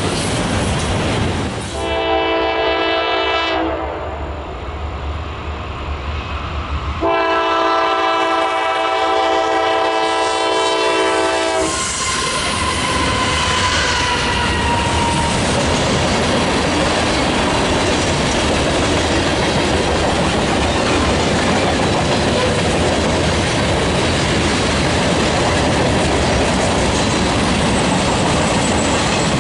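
A train locomotive's multi-chime air horn sounds two long blasts, the second longer, then the train passes close by with a steady loud rumble and clatter of its wheels on the rails.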